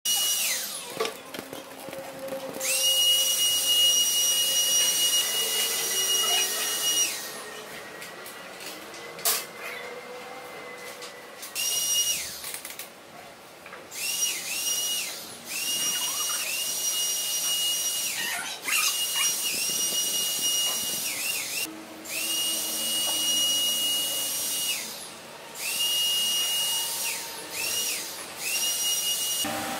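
Handheld electric disinfectant sprayer running in stretches of a few seconds: a steady high whine over the hiss of the spray, switched on and off repeatedly with short pauses between.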